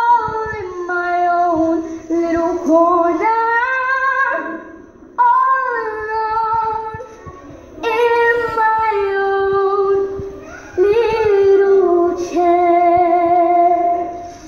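A girl singing a show tune solo: sung phrases with held notes, closing on a long held note that stops about a second before the end.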